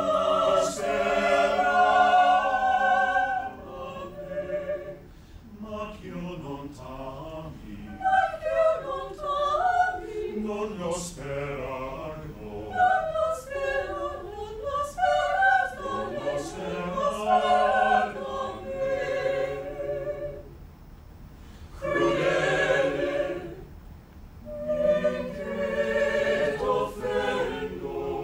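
Small mixed chamber choir of men's and women's voices singing a cappella in several parts, holding chords. There are short breaks between phrases about three quarters of the way through, and crisp 's' consonants throughout.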